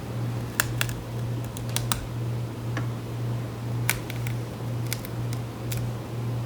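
Scattered small clicks and ticks as a rubber foot strip is peeled up off its adhesive on the underside of a plastic laptop case, over a steady low electrical hum.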